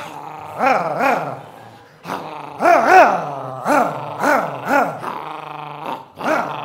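A man's voice imitating a dog: a run of short yelping whines, each rising and falling in pitch, two or three a second, over a low growl.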